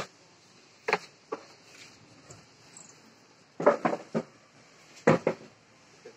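Short, sharp knocks and bumps in small groups of two or three over a quiet background.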